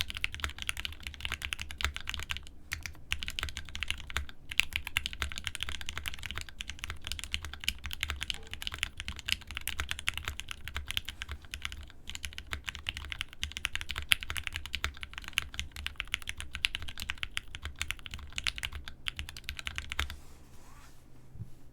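Custom Think6.5 v2 mechanical keyboard with lubed Tealios linear switches, an FR4 plate and GMK keycaps being typed on fast, a dense stream of keystroke clacks with a few short pauses. The typing stops about twenty seconds in.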